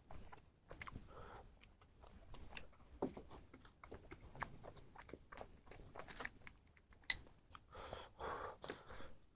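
Close-miked chewing of a cheesy chicken stuffed roll: soft wet chomping with frequent mouth clicks and light crunches, busiest near the end.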